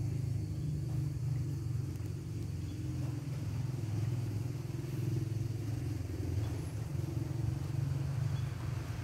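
A motor vehicle engine running steadily at idle: an even, low hum with no change in pitch.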